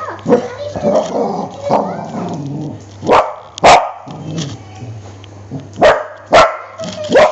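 Pet dog barking: sharp single barks, about five of them, mostly in pairs half a second apart, from about three seconds in, after a stretch of rougher, lower noise.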